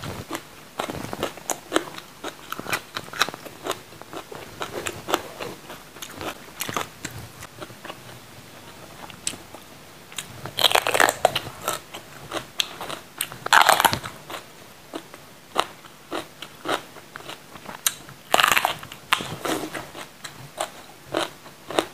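A person biting into and chewing a whole raw green bell pepper: a steady run of crisp, wet crunching and chewing, with louder crunching bites about halfway through, again a few seconds later, and once more near the end.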